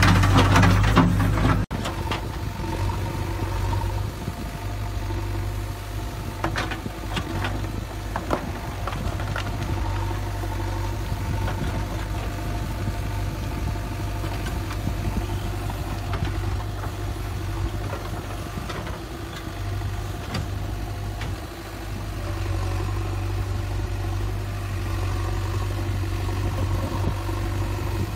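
JCB 3DX Super backhoe loader's diesel engine running steadily. It is louder and busier while heard from inside the cab for the first couple of seconds, then heard from outside, with a few short clicks of stone between about six and nine seconds in.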